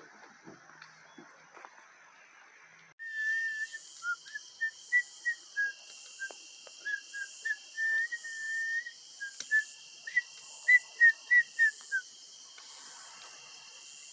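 A boy whistling a tune: a run of clear single notes, mostly short, with a couple held longer, starting about three seconds in over a steady high hiss.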